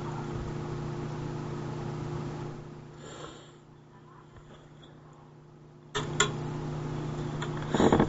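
A steady low hum over a background hiss. It fades to faint about two and a half seconds in, then comes back abruptly about six seconds in with a few clicks, and a louder burst follows near the end.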